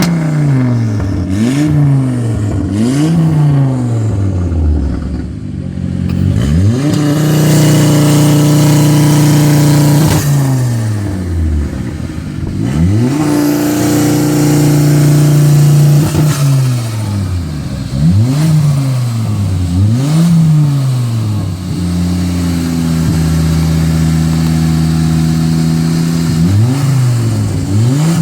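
Tuned 345 bhp Ford Focus race engine being revved with no load: quick throttle blips, each pitch rising sharply and falling back, broken by three spells of a few seconds where the revs are held steady.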